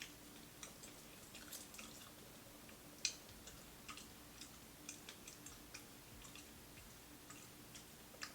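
Faint scattered small clicks and crackles of crispy fried whiting being picked apart and eaten, with one sharper click about three seconds in.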